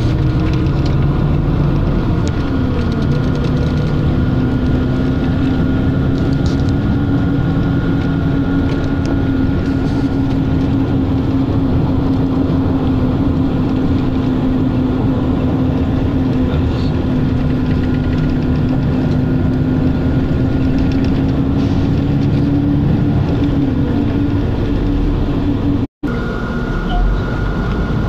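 Steady running noise heard from inside a moving vehicle, with a hum whose pitch drops a few seconds in and rises again near the end. The sound cuts out for an instant about two seconds before the end.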